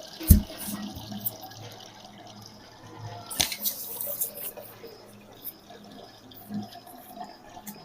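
Purple kinetic sand being scooped with a melon baller: soft, crumbly scraping and crackling. There is a sharp knock just after the start and a louder crackly burst a little before the middle.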